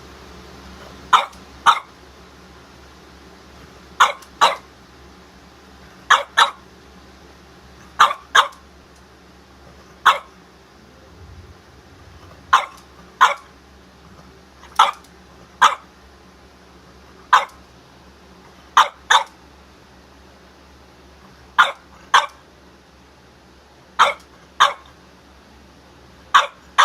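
French Bulldog barking: short, sharp barks, mostly in pairs about half a second apart, with a pair or a single bark roughly every two seconds.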